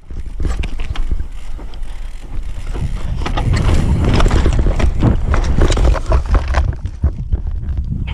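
Mountain bike descending a rough dirt and root trail: wind buffets the microphone with a low rumble while the tyres, chain and frame rattle and knock over the bumps, many times a second.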